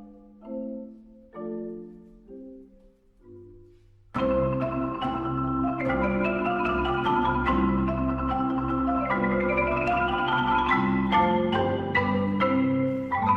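Background music of pitched, struck notes: a sparse, quiet phrase, then about four seconds in a fuller, louder section with a bass line and rapid runs of notes starts suddenly.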